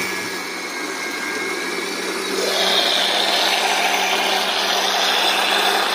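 Electric blender motor running steadily, mixing a spoonful of sugar into a jar of juice. About two seconds in the sound grows a little louder and hissier.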